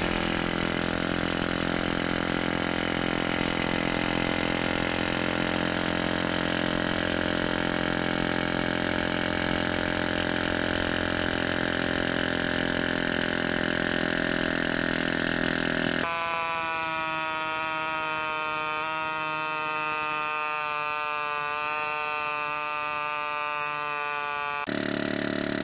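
Pneumatic air hammer (air chisel) hammering without a break on a steel socket set on top of a copper ground rod, driving the rod into the ground. About two-thirds of the way through, the sound turns into a ringing buzz whose pitch slowly sinks as the hammer slows, typical of the small portable compressor's air pressure running down. It turns rougher again near the end.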